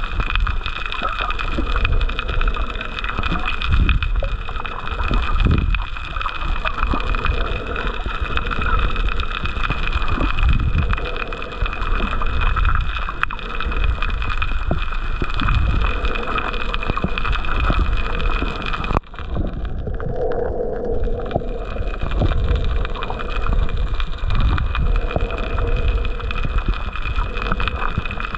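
Muffled underwater sound picked up by a snorkeler's camera: water sloshing and rumbling against the housing in uneven surges, over a steady high whine that runs throughout. Everything briefly drops away about nineteen seconds in.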